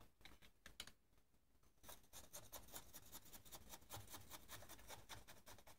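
Faint rapid clicking and rustling of firework stars and tissue paper being handled as stars are packed into a paper-lined ball-shell hemisphere. The clicking is sparse at first and turns dense about two seconds in.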